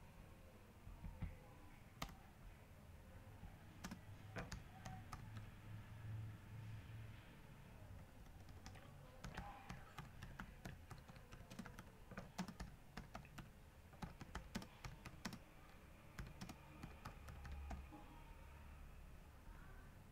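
Computer keyboard typing: faint, irregular keystrokes in quick runs, thinning out near the end.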